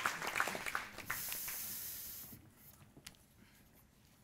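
Audience applause dying away in the first second. A steady high hiss follows for about a second, then a quiet hall with a single click.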